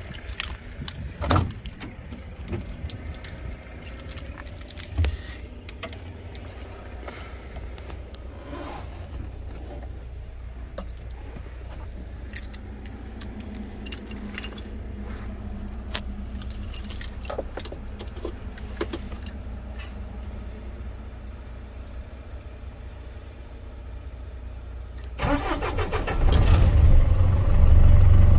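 Cab door and keys handled, with scattered clicks and knocks. About 25 seconds in, the Renault Midlum 220's diesel engine is cranked by the starter for about a second, catches, and settles into a steady idle.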